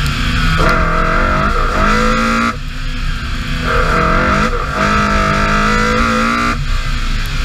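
BMW E30 M3 rally car's four-cylinder S14 engine at full throttle. Its pitch climbs, then breaks off and drops back several times as it shifts gear, over a steady low rumble.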